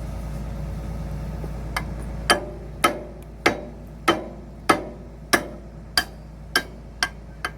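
A run of about ten hammer blows on steel, evenly spaced at a little over one a second, each ringing briefly, struck while fitting a part on a Hitachi ZX210-5G excavator. A low engine hum sits under the first couple of seconds.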